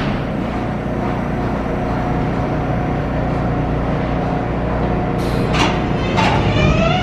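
R142A subway train standing at the platform with a steady mechanical hum, a few short hisses of air about five to six seconds in, then its propulsion motors starting up near the end with a rising whine as the train begins to pull out.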